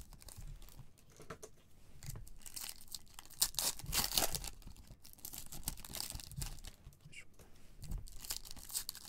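Foil trading-card pack wrappers being torn open and crinkled by hands in nitrile gloves, in irregular bursts of tearing and rustling foil.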